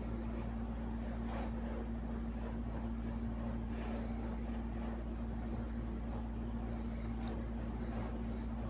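A steady machine hum with one constant low tone, unchanging in level.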